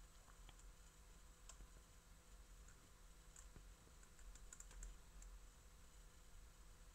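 Faint, sparse small clicks and taps of fingers handling a steel Oris Aquis Depth Gauge dive watch, with a quick cluster of clicks about four and a half seconds in, over a faint steady hum.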